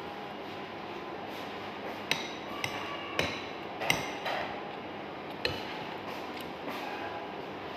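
Cutlery clinking and tapping against a plate during a meal: about half a dozen sharp clinks with a brief ring, spread over a few seconds in the middle.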